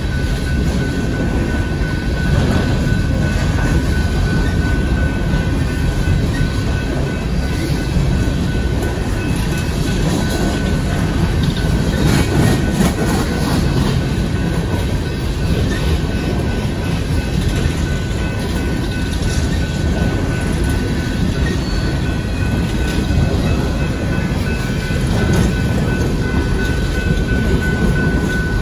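Union Pacific coal train's open-top cars rolling steadily past: a continuous rumble of wheels on rail with some clickety-clack.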